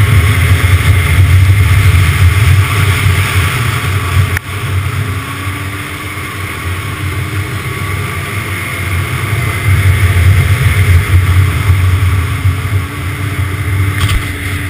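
Arctic Cat snowmobile engine running under way, a steady low drone. It dips briefly about four seconds in, runs quieter for a few seconds, then grows louder again around ten seconds.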